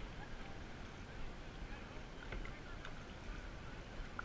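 Kayak being paddled: faint water swishing and dripping from the paddle blades, with a few soft ticks, over a steady hiss of wind and small waves.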